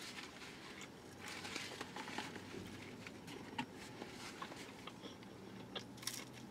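Faint sounds of eating chicken nuggets: chewing, with scattered soft clicks and a few sharper ticks from handling the cardboard nugget box.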